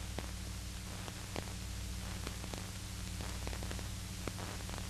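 Steady hiss and low hum of an old film soundtrack, with scattered faint clicks and pops.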